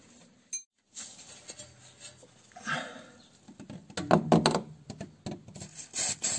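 Hand-tool work on a car's front brake: rubbing and scraping, with a cluster of sharp clicks and knocks about four seconds in and again near the end.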